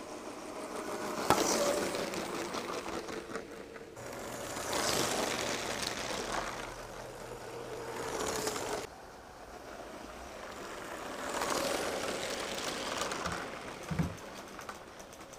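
LEGO train's small electric motor whining and its wheels rattling along plastic track, swelling and fading three times as the train passes close by. A sharp click about a second in and a low thump near the end.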